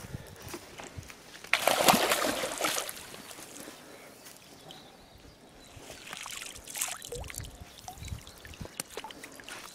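Water splashing as a landing net is worked in a pond around a hooked carp: one loud splash about two seconds in, then smaller splashes and sloshing around six to seven seconds in.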